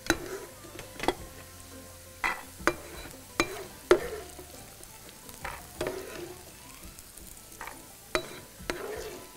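A spatula knocking and scraping against a frying pan as food is stirred in it, about a dozen sharp, irregular strikes with a faint sizzle underneath.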